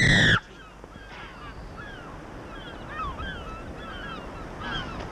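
A girl's loud, high-pitched scream cuts off suddenly about half a second in. Faint bird chirps follow over a quiet outdoor background.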